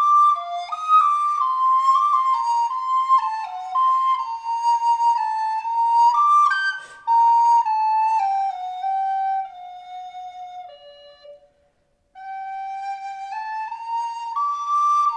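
Solo wooden recorder playing a melody of held notes, an improvisation on Christmas carols, with no accompaniment. The line falls step by step and fades out about eleven seconds in. After a short pause a new phrase starts.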